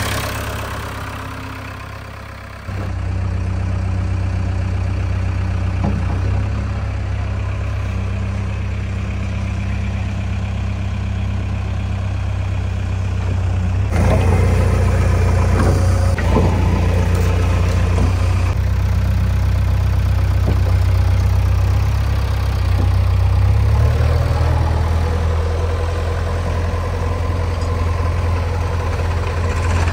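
Heavy diesel engine running steadily at low revs. It gets louder about three seconds in, and its note rises slightly a little over three quarters of the way through.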